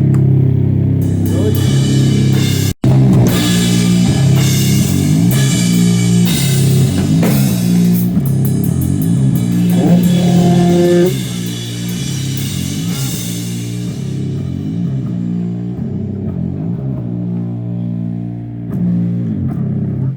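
Sludge metal band playing a slow, heavy distorted riff at a sound check: electric guitar and bass guitar with drums and crashing cymbals. About eleven seconds in the drums drop away and the guitar and bass ring on alone, stopping at the very end. There is a split-second dropout about three seconds in.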